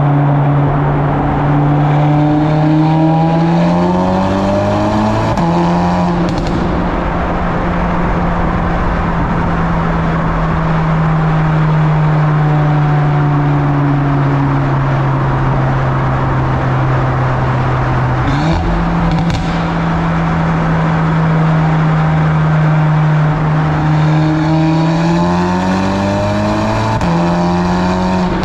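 Turbocharged 2.0-litre four-cylinder with an aftermarket 4-inch downpipe and stock muffler, echoing inside a road tunnel. The exhaust note rises as it pulls through a gear and drops back at an upshift about five seconds in, then holds steady at cruise. It jumps up in pitch at a downshift about 18 seconds in, then pulls and shifts up again near the end.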